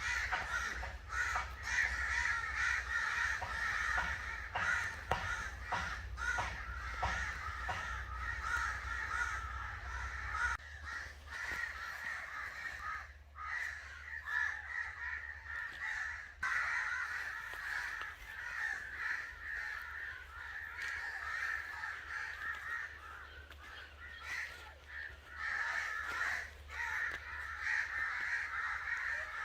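Several crows cawing together, a dense chorus of harsh overlapping caws without a break.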